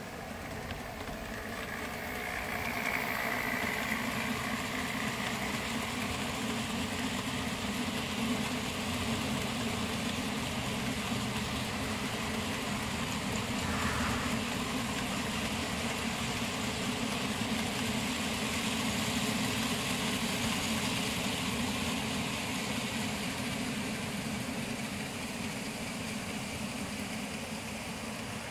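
Model trains running on the layout: a steady rumble and hum of wheels on track and small motors, building over the first few seconds and then holding.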